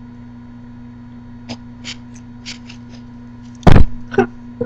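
Steady electrical hum from a webcam microphone, with a few faint short crinkles or clicks, then one loud sudden bump about three and a half seconds in and a smaller one just after.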